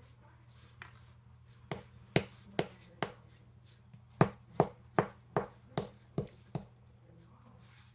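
Small plastic digging tool striking and chipping a chalky dig block in a toy dinosaur fossil excavation kit: a few sharp taps, then a steadier run of about seven strikes, two or three a second.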